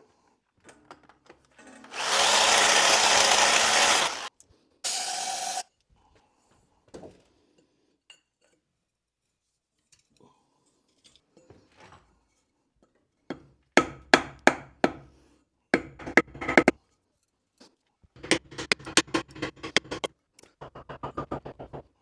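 A power tool runs for about two seconds, then briefly once more, while work is under way on a tight pipe hole.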